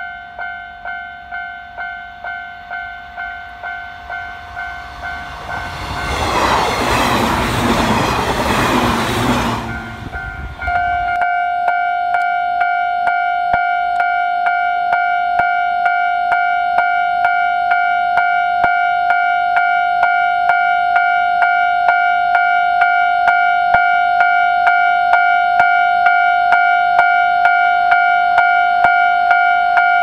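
Japanese level-crossing warning bell ringing at an even beat, about one and a half dings a second. Partway through, a loud rushing noise of a passing train drowns it for about four seconds. The bell then comes back at a slightly different pitch and keeps ringing.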